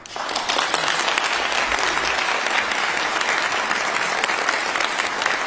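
Applause from a seated audience in a large hall: many hands clapping steadily, starting right after the speaker's closing words.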